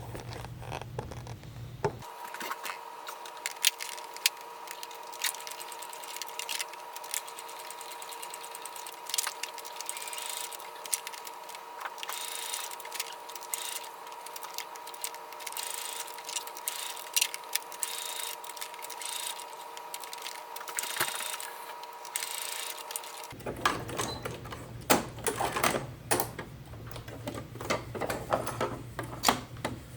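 Sewing machine stitching through nylon strap webbing, a rapid clatter of needle strokes in runs. A steady hum runs under most of it and stops about three-quarters of the way through.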